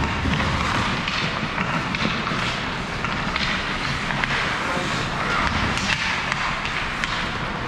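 Ice hockey play: skates scraping the ice and sticks and puck knocking in short clicks, over indistinct voices of players and spectators.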